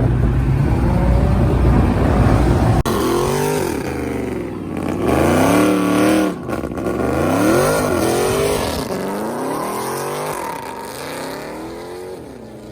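Muscle car engine running loud and low at first, then revving hard about three seconds in, its pitch climbing and dropping again and again for several seconds before fading away.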